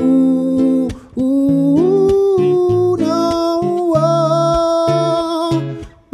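A man sings a wordless melody in long, gliding held notes over a nylon-string classical guitar.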